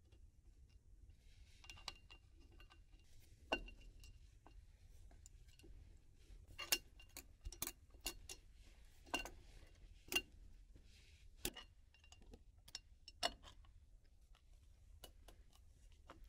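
Faint, irregular metallic clinks and taps of hand tools and metal parts being handled, about a dozen sharp ones spread unevenly, some with a brief ring.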